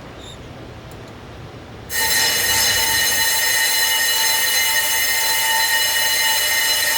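Steady, high-pitched metallic squeal from a brake disc rotor, several even tones at once, starting suddenly about two seconds in after a low rumble.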